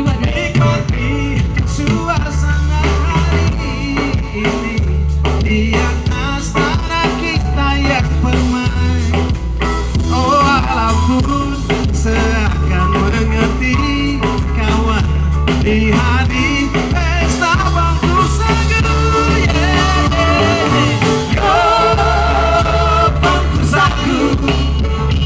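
Live band playing an upbeat song, with singers on microphones over electric guitar and a heavy, steady bass line.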